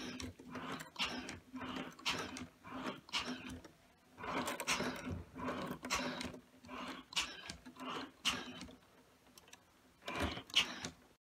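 Lego Mindstorms motors running with a steady low hum while their gears and rope pulleys squeeze the ventilator model's bag. Irregular louder whirring surges come every half second to a second, the loudest near the end.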